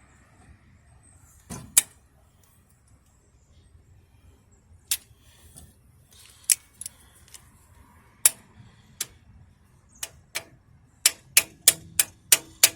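Sharp metallic clicks and taps of hand tools on metal, one every second or two, then a quick regular run of about three a second near the end.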